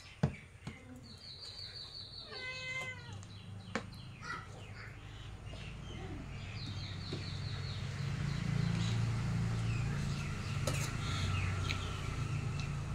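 A short animal call whose pitch steps down, about two and a half seconds in, among high, thin chirps. From about eight seconds in, a low steady hum swells up and holds.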